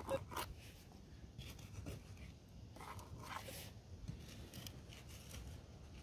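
Small prospecting pick scraping and chopping into loose, gravelly soil in a series of short scrapes.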